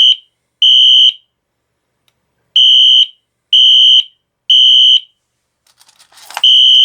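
Wheelock NS-24MCW horn strobe's horn sounding loud, high-pitched electronic blasts in the temporal-three evacuation pattern: three half-second blasts, a pause of about a second and a half, then three more, set off by a manual pull station. A brief rattle comes a little before the end, just as the next set of blasts begins.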